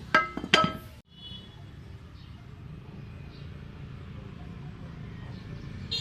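Two sharp, ringing metallic clinks in quick succession, as of metal parts or tools knocking together. After a sudden cut comes a steady low hum.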